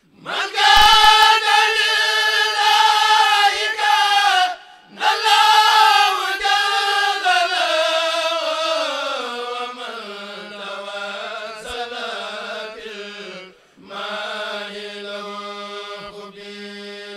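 A kourel of men chanting a Mouride khassida a cappella over microphones, in long held phrases with short breaths about four and a half seconds in and again near fourteen seconds in; the middle phrase slowly sinks in pitch.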